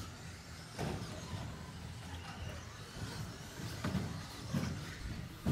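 Radio-controlled off-road buggies racing around the track: a steady whirr of their motors and tyres, broken by several sharp knocks.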